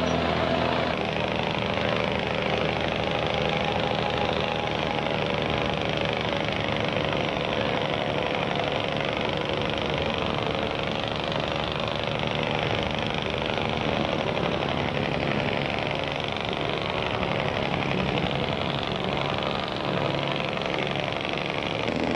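A boat's engine running steadily, with a constant rushing noise over it.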